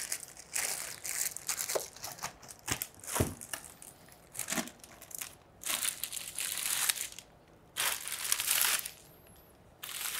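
Clear plastic bag over a monitor crinkling in repeated bursts as it is pulled back and handled. About three seconds in there is a single dull thump.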